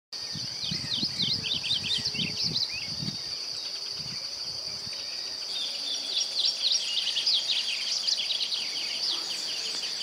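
Outdoor woodland ambience: a steady high-pitched insect drone, with birds giving many quick chirps in two spells, one in the first three seconds and another from about six to nine seconds in.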